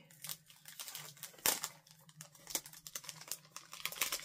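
Crinkling and clicking of a clear plastic packaging sleeve and card being handled as a necklace is taken out, with a sharp click about one and a half seconds in.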